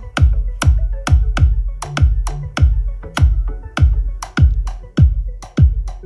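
Electronic music with a heavy drum-machine beat played loud through a Panasonic SC-HT550GW-K 5.1 home theater system: a deep kick that slides down in pitch on each hit, about two to three hits a second, over sharp high percussion clicks.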